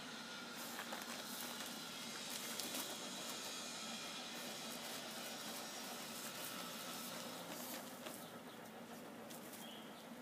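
A dog digging in dry, gravelly soil, its front paws scraping and scattering dirt in quick irregular strokes.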